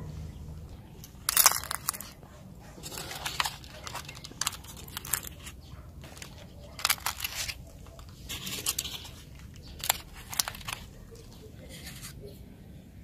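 Irregular short bursts of crunching and crackling, about eight of them, the loudest about a second and a half in, as brittle things are crushed.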